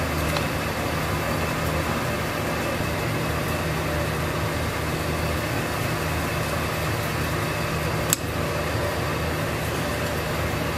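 Steady low hum and hiss of kitchen machinery running, with one sharp click about eight seconds in.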